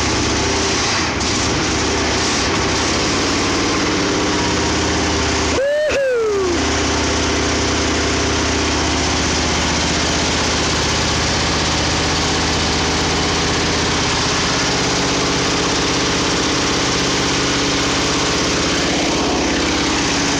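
Ford 460 big-block V8 in a 1965 Ford F100 idling steadily on its first run in 15 years, with the transmission in reverse to circulate the transmission fluid.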